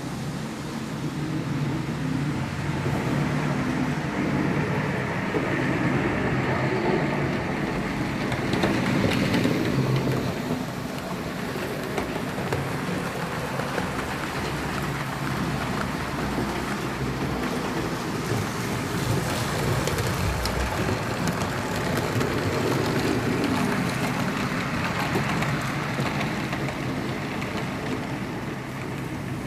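HO-scale model trains running on the layout: small electric motors whirring and wheels rolling over the track in a steady noise that swells briefly about eight to ten seconds in.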